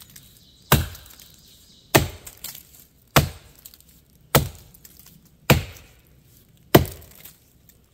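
Forest axe chopping into a standing dead Virginia pine, cutting the face notch: six sharp blows at an even pace, about one every 1.2 seconds.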